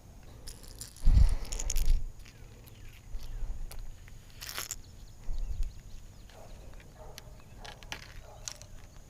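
Close handling noise: rustling and sharp clicks, with loud deep bumps from about one to two seconds in.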